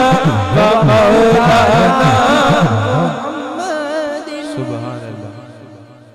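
Man singing a devotional naat in a wavering, ornamented line through a microphone, over a low rhythmic accompaniment. The accompaniment stops about three seconds in, and the singing fades away over the rest.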